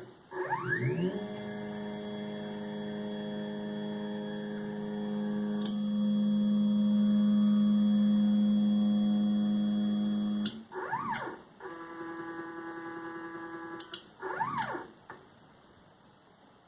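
Stepper motors of a DIY CNC engraver whining through its homing cycle. The pitch sweeps up as an axis speeds up and then holds a steady tone for about ten seconds. Two short moves follow that rise and fall in pitch around a higher steady whine, and the motors stop a couple of seconds before the end.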